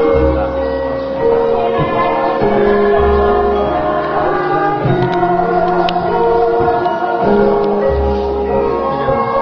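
Javanese gamelan playing a gending with voices singing, long held notes changing about once a second over a deep low tone that swells up and dies away three times.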